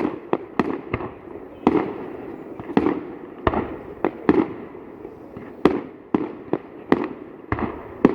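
Aerial fireworks going off in a rapid, irregular string of sharp bangs, a dozen or more, some close together, each with a short echoing trail.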